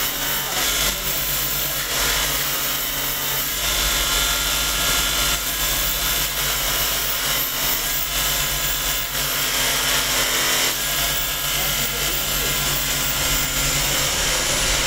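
Metalworking machinery for making stainless steel spoons running steadily: a loud, continuous whir and hiss with no clear rhythm.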